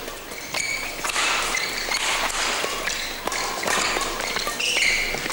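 Badminton doubles rally: the shuttlecock is struck back and forth by rackets in a series of sharp taps, with short squeaks of players' shoes on the court mat over the hum of a crowded hall.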